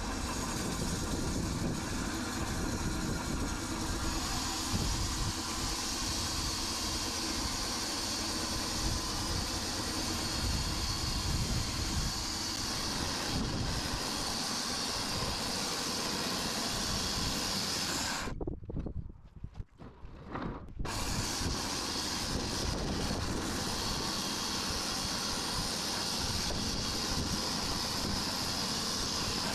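Sawmill running steadily while its blade cuts through an ash log, a dense hissing machine sound. It cuts out abruptly for about two seconds two-thirds of the way through, then resumes unchanged.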